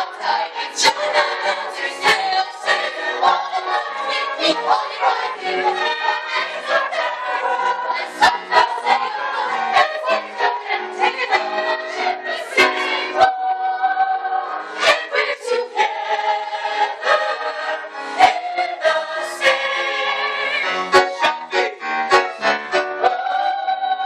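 A stage cast singing a show tune together in chorus, ending on a held note.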